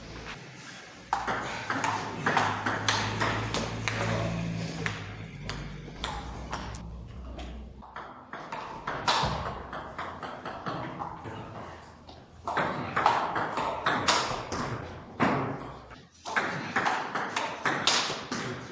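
Table tennis rallies: the ball ticking back and forth off the paddles and the table in quick, uneven runs of sharp clicks, with short pauses between points.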